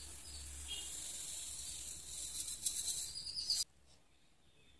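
Raw rice grains poured into a bowl, a steady grainy hiss that stops abruptly about three and a half seconds in.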